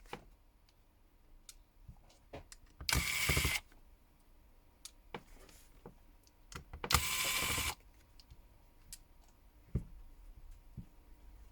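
Small electric precision screwdriver whirring in two short bursts a few seconds apart, backing out the screws that hold a Samsung Galaxy S10+ motherboard, with light clicks and taps of tools and screws in between.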